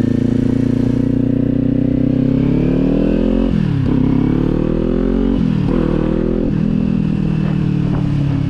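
Kawasaki motorcycle engine accelerating: its pitch climbs, drops sharply at an upshift about three and a half seconds in, climbs again, drops at a second upshift about five and a half seconds in, then runs steadily.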